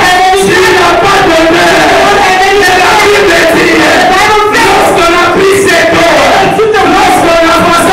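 Loud amplified worship singing: a man and a woman singing together into handheld microphones through a church PA, in long held notes.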